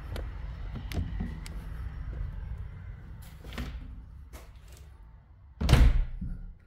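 A door shutting with a loud thud about five and a half seconds in. Before it there is a low rumble and a few faint knocks.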